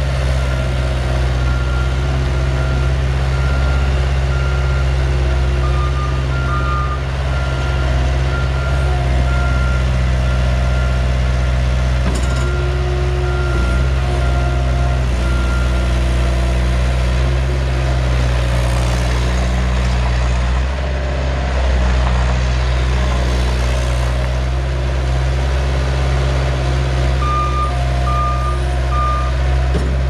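Bobcat S130 skid steer's Kubota V2403 four-cylinder diesel running steadily as the machine drives and turns. A backup alarm beeps repeatedly through the first half, and a second, lower beeper sounds briefly a couple of times, once near the end.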